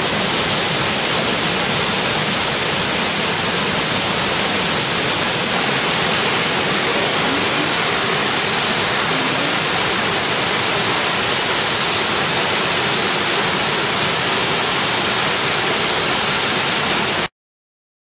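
Waterfall pouring into its rock plunge pool: a steady, loud rush of falling water that cuts off suddenly near the end.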